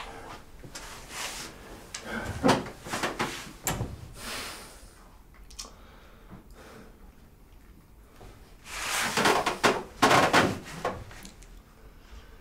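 Knocks, rustles and scrapes of handling and wooden furniture in a small room as a person moves about and sits down at a wooden table. A louder cluster of scraping and knocks comes near the end.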